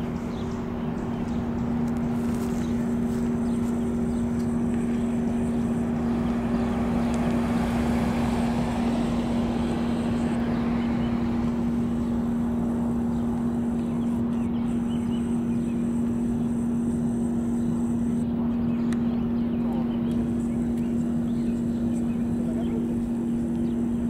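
Roadside ambience: a steady low hum throughout, with a passing vehicle swelling and fading about a third of the way in.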